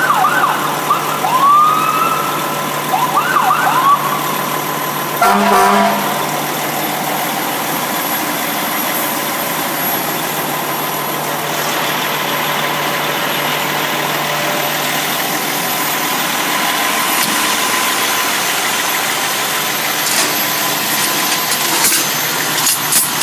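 Fire truck's siren tested in a few short rising-and-falling whoops, then one brief horn blast about five seconds in. After that the truck's engine idles steadily.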